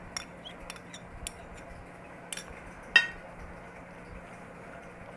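A spoon scraping and tapping against a serving dish while mayonnaise dressing is mixed into shredded cabbage and carrots. There are a few light taps and one sharp, ringing clink about three seconds in.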